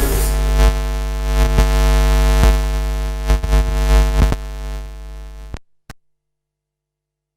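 Electronic dance music with heavy deep bass: a held synthesizer chord with drum hits about once a second. It fades slightly and then cuts off abruptly about five and a half seconds in, followed by a single click and dead silence.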